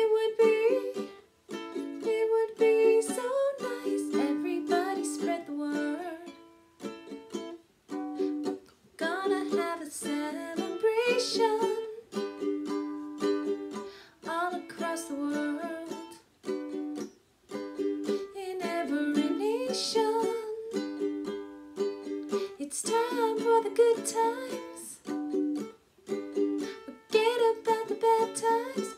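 A woman singing while strumming chords on a ukulele, with short pauses between phrases.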